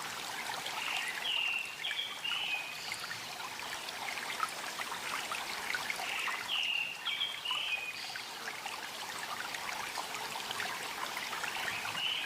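Water trickling and babbling in a small stream, steady throughout. A short bird phrase of a few quick chirps repeats three times, about every five and a half seconds, with a single higher whistle between the phrases.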